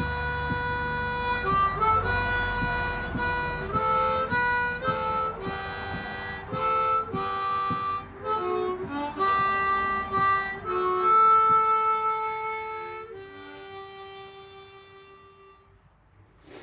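Harmonica playing a melody in held notes and chords, ending on a long note that fades away near the end.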